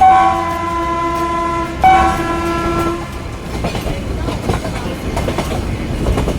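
Nilgiri Mountain Railway train sounding its horn in two blasts, the first about two seconds long and the second about a second long, ending about three seconds in. The carriages rattle and clatter along the narrow-gauge track under the horn and after it.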